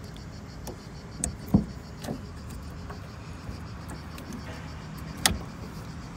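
A few sharp plastic clicks and knocks as a car door's wiring connector is worked loose by hand. The loudest click comes about a second and a half in and another just past five seconds, over a faint steady hum.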